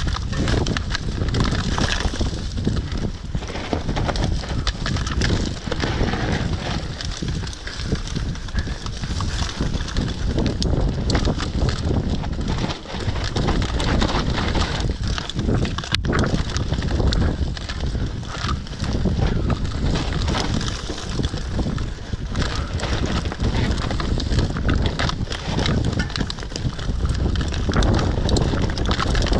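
Mountain bike descending a dirt and stone trail at speed: tyres rolling over loose ground and the bike clattering and rattling over bumps, with constant wind on the microphone.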